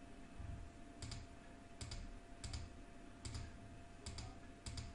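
A computer mouse clicking about six times at uneven intervals of roughly half a second to a second, each click with a soft low thud, over a faint steady electrical hum.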